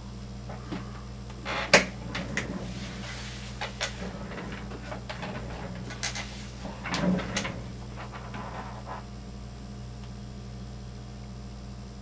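A few sharp clicks and knocks of parts and tools being handled on a workbench, the loudest about two seconds in and another cluster around seven seconds, over a steady low hum.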